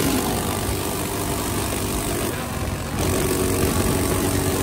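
Coleman CT200U mini bike's modified 196cc single-cylinder engine, fitted with a 30 mm PWK carburettor, running steadily while the bike is under way, mixed with wind noise. The sound drops for a moment about two and a half seconds in.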